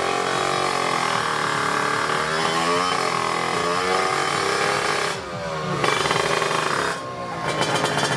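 Tuned Kawasaki Ninja two-stroke drag-bike engine, bored to 155cc, being revved: its pitch rises and falls over and over, drops off briefly twice in the second half, then picks up again with a rapid crackle.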